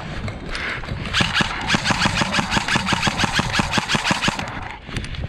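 Airsoft electric gun firing a long full-auto burst: a fast, even rattle of shots from about a second in, lasting close to four seconds.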